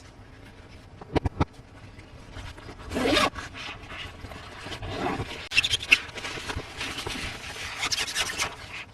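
Hands unboxing and handling toys and their plastic and cardboard packaging: continuous scraping and rubbing, with three quick sharp clicks about a second in, a louder scrape about three seconds in, and more clicks around the middle.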